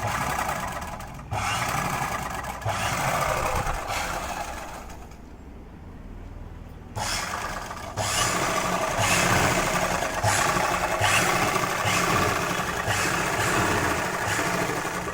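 Electric sewing machine motor running under foot-pedal control, in short runs as the pedal is pressed and eased. It drops to a quieter lull around the middle, then picks up and runs steadily through the second half.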